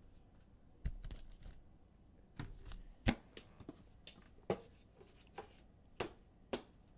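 Trading cards and packs being handled on a tabletop: light taps and clicks, about one a second, as cards are slid, sorted and set down.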